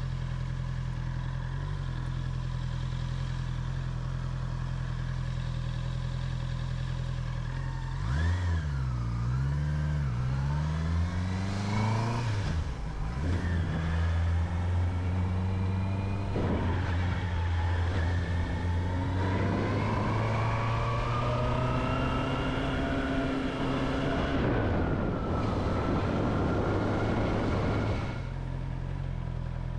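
Motorcycle engine running at a steady low note. About eight seconds in, an engine revs up and down, then accelerates with a rising pitch through two or three gear changes. Near the end it drops away and the steady low note returns.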